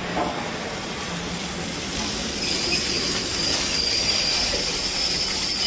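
A train rolling past close by, its wheels running on the rails with a steady noisy rumble. About two and a half seconds in, a high steady squeal of wheels on rail joins in.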